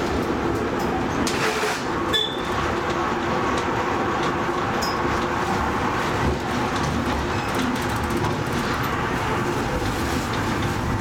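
Zecca–Righi funicular car running on its narrow-gauge rails, heard from inside the cab: a steady rumble with scattered clicks from the wheels on the track, and a brief high squeak about two seconds in.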